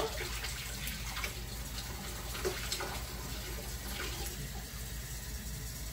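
Kitchen tap running steadily as a glass is filled with lukewarm water.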